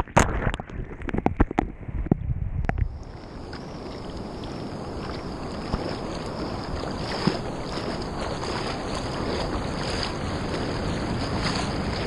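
Ocean surf washing over a waterproof action camera at water level: for about the first three seconds, muffled sloshing and knocking of water against the camera. After that, a steady hiss of foam and small waves around it.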